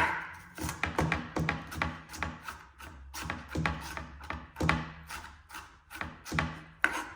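Knife chopping on a cutting board: a run of irregular sharp strokes, about two to three a second.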